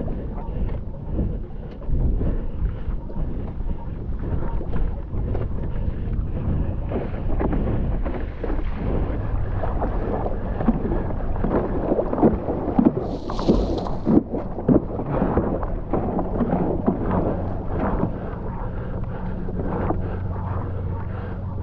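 Water splashing and slapping against a stand-up paddleboard, with paddle strokes, under wind on the microphone. The sharpest splashes bunch together in the middle of the stretch.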